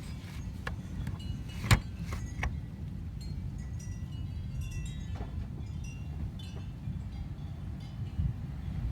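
Thunderstorm wind gusting with a steady low rumble and light high-pitched tinkling, as the storm front rolls in. A single sharp knock comes just under two seconds in.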